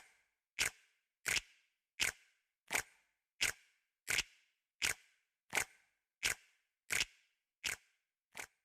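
Steady, evenly spaced sharp clicks, about three every two seconds, each dying away quickly with dead silence between, like a bare click track.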